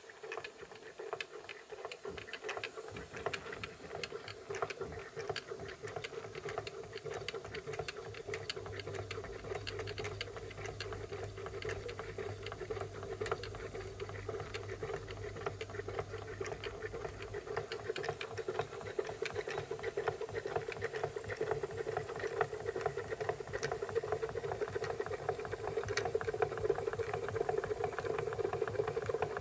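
Märklin 16051 live-steam model compound engine running, a rapid, steady clatter of exhaust beats and working rods that grows gradually louder.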